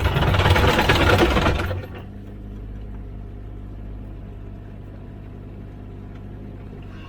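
Komatsu PC16 mini excavator working: loud machine noise for about the first two seconds, then its diesel engine drops back to a steady, lower hum.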